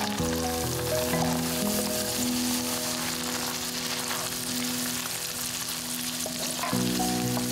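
Sliced onions sizzling in melted butter in a frying pan as they are tipped in and stirred with a wooden spatula.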